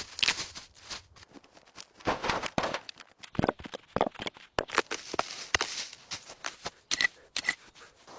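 Rapid, irregular clicks, taps and short scrapes, several a second, with a few louder knocks about seven seconds in.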